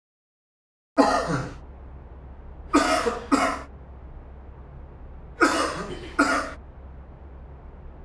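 Person coughing: a single cough about a second in, two coughs in quick succession a little later, and two more about halfway through, over a steady low hum.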